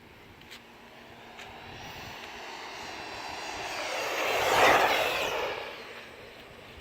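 Traxxas Mini E-Revo RC truck approaching and passing at speed, its electric motor whine and tyre noise building steadily to a peak about four and a half seconds in, then fading quickly.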